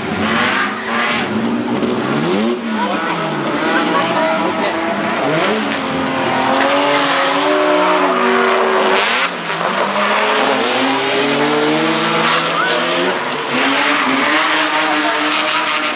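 Drift car engines revving hard, their pitch climbing and dropping again and again as the drivers work the throttle, with tyre screech over them. A short loud burst of noise comes about nine seconds in.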